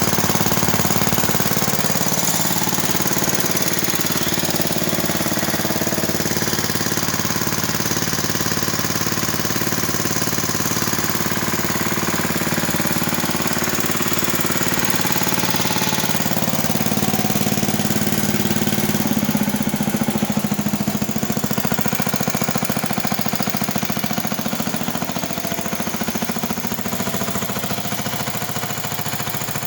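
Bolens Estate Keeper EK7 garden tractor engine running steadily on its rebuilt carburetor. Its note shifts briefly about two-thirds of the way through.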